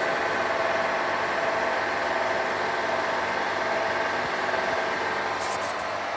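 Hotpoint washing machine running with a steady, horrendous-sounding grinding noise, a continuous harsh whirr with a few faint clicks about five and a half seconds in.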